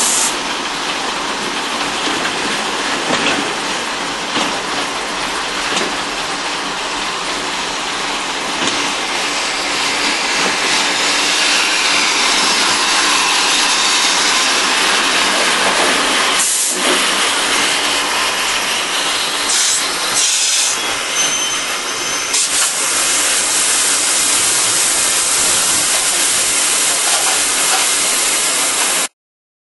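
Steam locomotive No 40 close by, with a loud, steady hiss of steam. The sound has two short breaks about halfway through and stops suddenly near the end.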